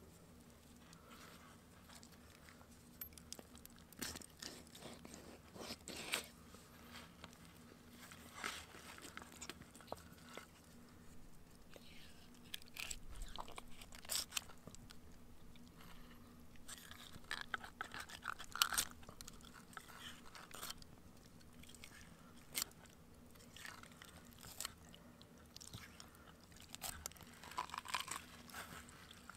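Knife cutting and scraping through a small fish on a wooden cutting board as it is cleaned, making faint, irregular crunches, scrapes and taps.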